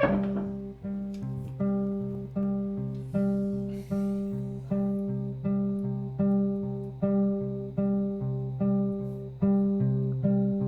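Background music: a guitar picking a steady, repeating pattern of plucked notes over a bass line.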